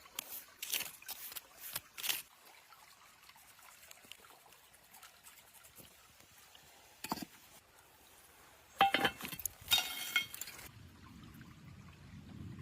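Kitchen cooking sounds: a few small clicks and scrapes, a knock about seven seconds in, a burst of ringing clinks like a metal utensil against a pot near ten seconds, then a low hum near the end.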